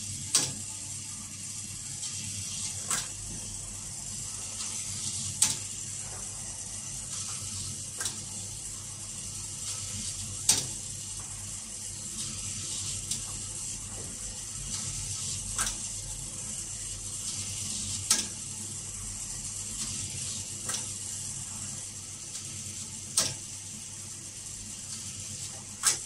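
Arctic L800TA front-loading washing machine running, a steady mechanical hum with a sharp click about every two and a half seconds.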